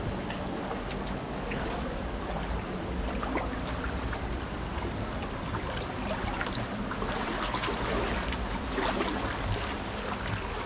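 Shallow mountain creek running over gravel and rock: a steady rush of water with many small splashes and trickles.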